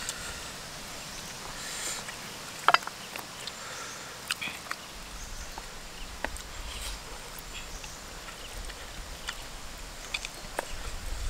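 Close-up eating sounds: chewing and lip smacking, with small clicks as rice and chicken are eaten by hand. A sharper, louder click comes nearly three seconds in.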